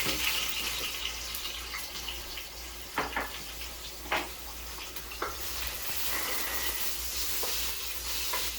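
Onion sizzling in hot cooking oil, a steady frying hiss broken by a few sharp clicks about three, four and five seconds in.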